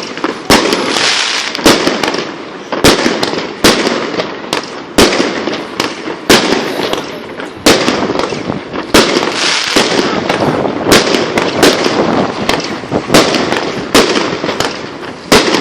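Tanrem 'Yolka' consumer firework cake (battery) firing its shots: a sharp bang about once a second, with crackling between the bangs.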